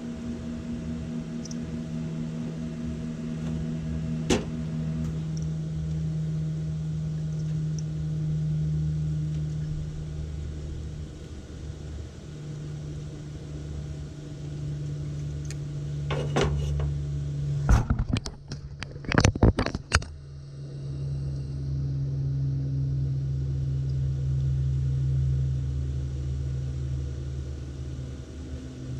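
Steady low mechanical hum, with a sharp click about four seconds in and a flurry of clicks and crackles a little past the middle.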